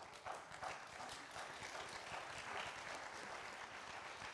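Audience applause: a dense, steady patter of many hands clapping.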